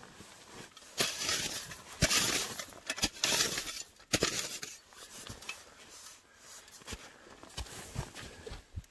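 Rustling and crunching of someone working in snow, loudest for a few seconds early on, with several sharp knocks.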